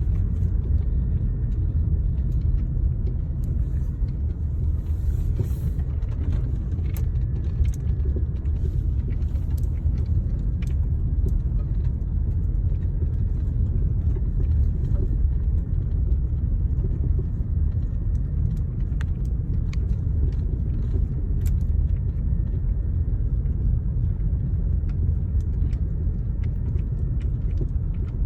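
Second-generation Kia Cerato driving, with a steady low road rumble and scattered sharp knocks at irregular intervals from the suspension, the sign of a suspension fault.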